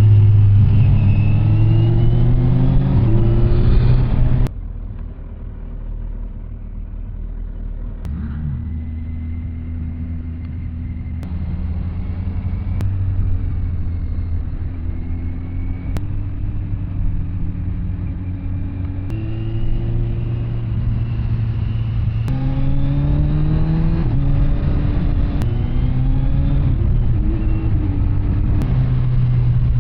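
Kawasaki Z900 SE's inline-four engine through an SC Project CR-T carbon exhaust, ridden under acceleration. The engine note drops off abruptly about four seconds in, then builds again with its pitch rising in steps through the gears.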